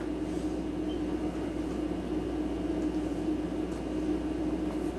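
A steady machine hum with one constant low tone and no changes or sudden sounds.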